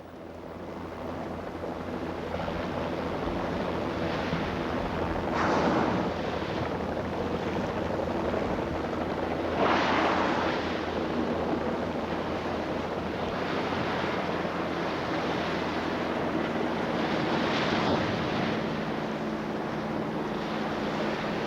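Open-sea noise: waves washing, with louder surges of rushing water every few seconds over a steady low hum.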